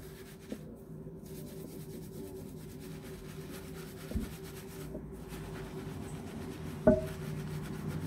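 Hands scrubbing and squishing shampoo lather through wet hair, a soft rubbing over a steady low hum. A sharp knock sounds near the end, with small clicks before it.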